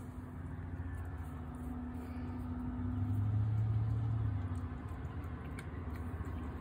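A low engine hum that swells louder about three seconds in, then fades back after about a second and a half.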